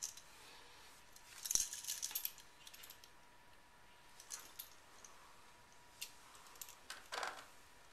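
Light metallic clinks and rattles of small hardware being handled: a wall outlet set down and a pair of pliers picked up. A cluster of clicks comes about a second and a half in, then a few single clicks.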